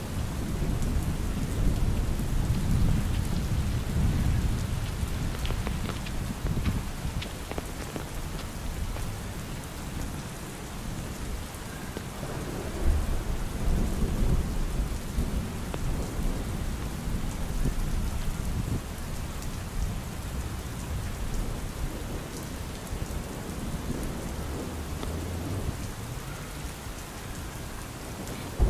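Steady rain falling, with a low rumble of thunder that swells and fades, loudest a few seconds in and again about halfway through.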